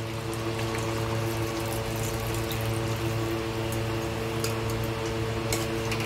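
Coconut milk being poured into a simmering prawn curry in a steel kadai and stirred in with a metal spatula, with a few light clicks of the spatula against the pan. A steady hum with several held tones runs underneath.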